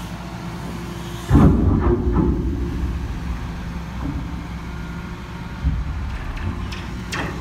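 Liebherr 936 excavator's diesel engine running steadily under load. About a second in comes a loud crunch as the Genesis hydraulic shear bites into the roughly inch-thick steel tank wall, followed by a couple of quieter knocks near the end.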